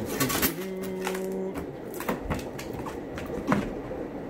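Styrofoam-lined cardboard shipping boxes being handled: a series of short knocks and scrapes as the foam lid is put back and the boxes are shifted about.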